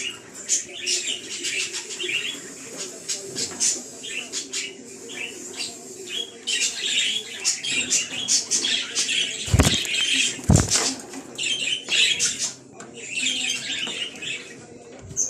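Budgerigars chirping and warbling in quick, chattering bursts, with two sharp thumps about ten seconds in.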